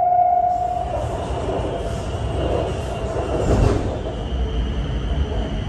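Elevated metro train car in motion, heard from inside: a steady whine that cuts off about a second in, then a rumble of wheels on rail with a louder surge in the middle, and a thin high squeal toward the end as the train nears its stop.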